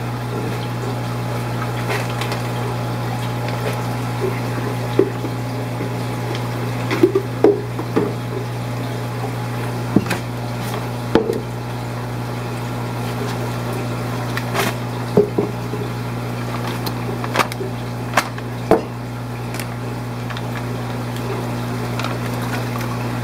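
Steady hum of aquarium pumps with running water, broken by scattered sharp clicks and knocks.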